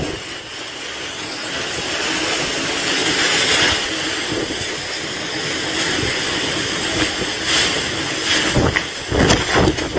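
Typhoon wind and heavy rain, a steady rushing noise that swells and eases, with louder, uneven gusts in the last second or so.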